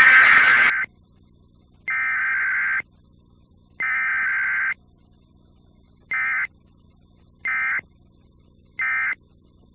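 Emergency Alert System SAME data bursts: three screechy digital header bursts of about a second each, then three short end-of-message bursts of the same tones, with a faint hum in the gaps.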